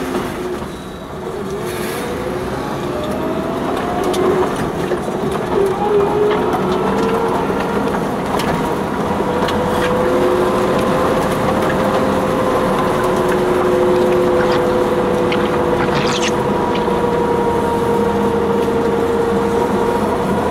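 Off-road 4x4's engine and tyre noise while driving along a tarmac lane. The engine pitch rises as it pulls away and accelerates over the first few seconds, then settles into a steady cruise with a constant whine.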